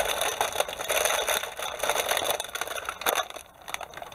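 Cardboard kit box and large plastic-bagged sprues and a diorama base being handled and packed into the box: rustling, crinkling plastic and cardboard scraping, with a sharper knock about three seconds in.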